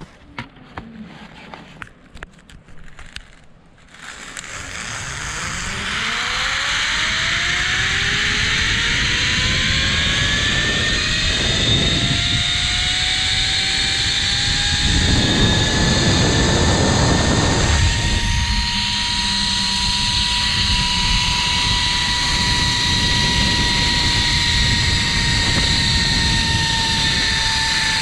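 Zipline trolley pulleys running down a steel cable: a whine that climbs steadily in pitch for about fifteen seconds as the rider gathers speed, then holds, over a loud rush of wind on the microphone. A few light clicks and knocks come in the first four seconds, before the run starts.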